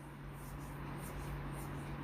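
Quiet room tone: a steady low electrical hum under a faint even hiss, with no speech.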